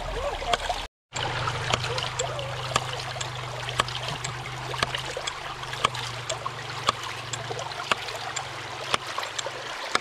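Hydraulic ram pump's waste valve snapping shut over and over, sharp clicks over the steady rush of creek water. Each snap is one pump cycle, driving a little water up the delivery pipe while the pump is primed and starts running on its own.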